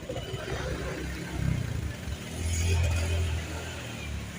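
A motor vehicle's engine running with a low rumble that swells for about a second past the middle, then eases off.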